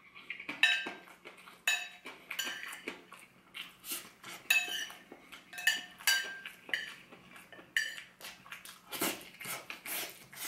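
Metal spoon scraping and clinking against a ceramic plate while scooping up rice: a dozen or so short clinks and scrapes at uneven intervals, some ringing briefly.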